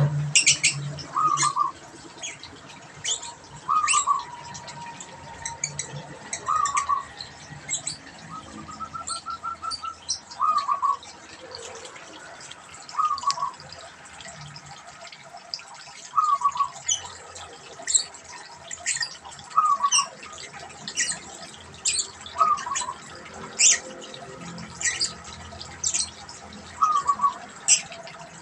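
Zebra dove (perkutut) cooing: short, trilled coo phrases repeated about every two to three seconds. Sharp, high chirps from other small birds run alongside.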